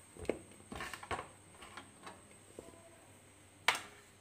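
Scattered light clicks and knocks as a steel pan of crisp jaggery-coated fried banana pieces is handled. There is a cluster of small knocks about a second in and one sharp click near the end.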